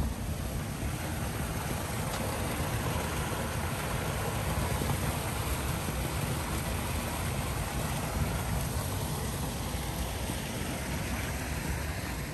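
Steady rushing noise with a deep rumble underneath, unbroken and without distinct events.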